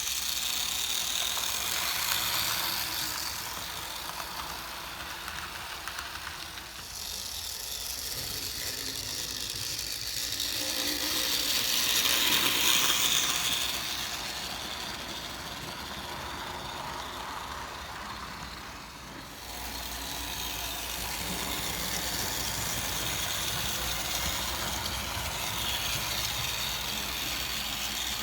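HO scale model steam locomotive running on the layout track: a steady whirring motor and gear drive with rattling wheels. It grows louder as it passes close, about twelve seconds in, then fades, with brief dips when it is farther away.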